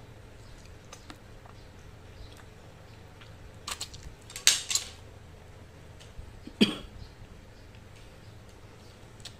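A person eating by hand: quiet background with a few sharp, loud mouth noises, a quick pair about four and a half seconds in and another just past six and a half.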